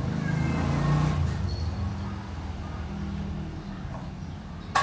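Motor vehicle engine running with a steady low hum, strongest in the first second and a half and then easing off. A single sharp click comes near the end.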